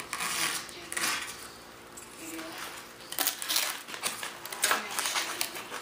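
Single-edge razor blade scraping and trimming cured fiberglass cloth and resin along the edge of a balsa-sheeted foam panel, in several short, scratchy strokes.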